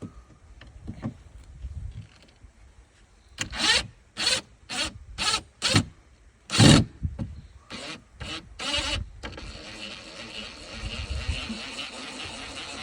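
DeWalt 20-volt brushless cordless impact driver hammering screws out of wood: about eight short loud bursts of the trigger, then a longer steady run near the end as a screw backs out.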